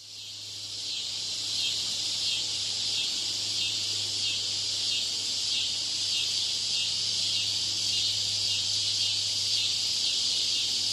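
Cicada buzzing: a steady, high-pitched drone with a faint pulsing, fading in over the first second or so.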